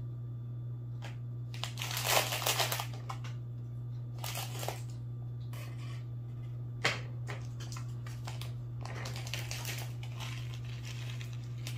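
Small plastic bag of cereal topping crinkling as it is handled, loudest in the first few seconds, and cut open with scissors, with one sharp click about seven seconds in; more crinkling as the bag is opened near the end. A steady low hum runs underneath.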